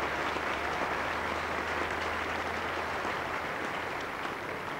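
Cricket crowd applauding a batsman reaching his fifty: steady massed clapping from a large stadium crowd, easing slightly near the end.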